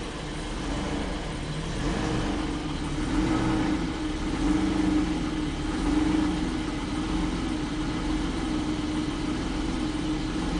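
1988 BMW 735i's straight-six engine idling just after a start. The idle fluctuates a little, not severe.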